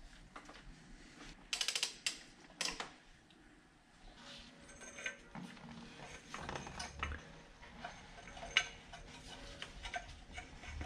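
Metal hand tools clinking and knocking against engine parts during reassembly, in irregular clicks. The loudest knocks come about one and a half to three seconds in, with lighter clicks after.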